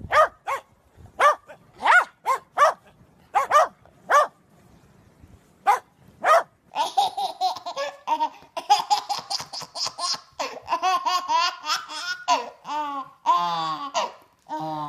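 Corgis barking in short, high yaps, a dozen or so over about six seconds. Then a baby laughs and squeals almost without a break.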